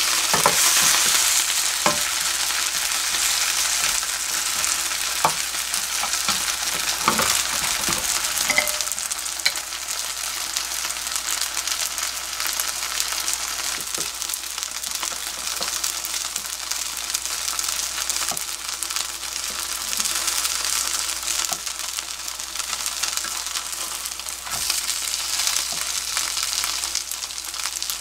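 Kimchi pancakes sizzling in plenty of oil in a nonstick frying pan: a steady high hiss, with a few light knocks of the spatula against the pan in the first several seconds.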